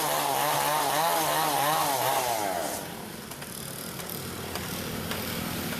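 STIHL chainsaw running at high revs with its pitch wavering up and down as it cuts wood, then dropping back to a lower idle about halfway through.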